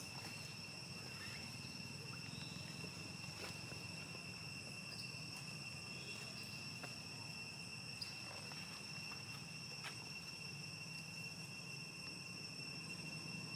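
Steady insect chorus: an unbroken high-pitched drone at two pitches, with a few faint ticks now and then.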